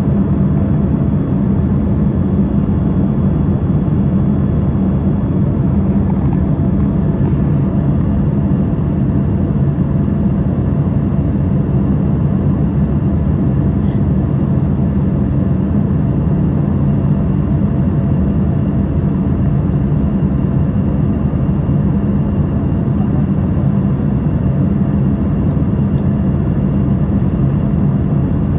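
Steady drone of an aircraft in flight on its approach to land: engine and airflow noise, heaviest in the low range, with a few faint steady tones above it.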